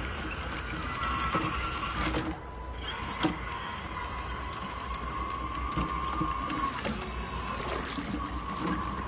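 Excavator running, with a low hum, a steady whine and scattered clicks and knocks; a sharp knock about three seconds in is the loudest.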